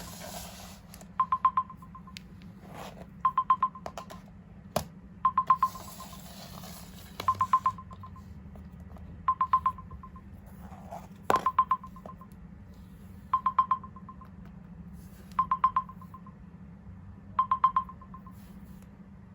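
Mobile phone alarm beeping: quick groups of four or five high beeps, a group every two seconds, with a couple of sharp clicks in between.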